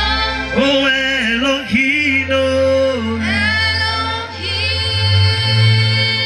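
Slow gospel worship singing with long, wavering held notes over sustained keyboard chords.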